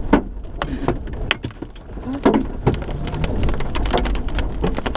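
Hailstones and rain striking the car's roof and windshield, heard from inside the cabin: scattered, irregular sharp knocks over a steady rumble of rain.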